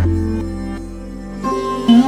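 Background music: sustained plucked-string and synth notes over a low bass tone, with new notes coming in about one and a half seconds in.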